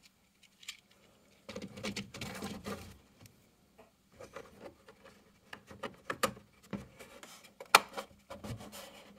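Hands handling the carbon filter and the plastic back wall inside a Bambu Lab P1S enclosure. A scraping rustle of plastic on plastic comes about a second and a half in, then scattered light clicks and knocks, with one sharp click a little before the end.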